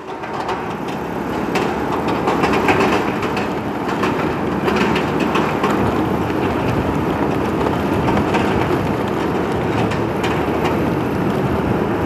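Steady road and engine noise from a moving motorcycle in traffic, building up over the first second or two, with scattered rattling clicks.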